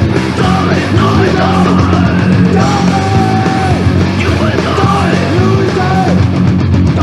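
Punk rock song played by a band, with yelled vocals.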